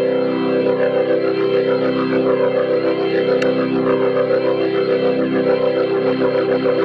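Electronic music: a sustained organ-like synthesizer chord held steadily, with a busy flickering texture above it.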